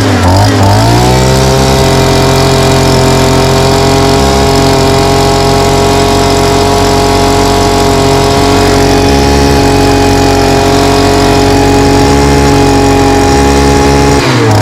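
Motor-driven machine speeding up over about the first second, then running steadily at a constant pitch and cutting off suddenly at the end. It is being run to force a string and bags through a water-filled 4-inch drain line.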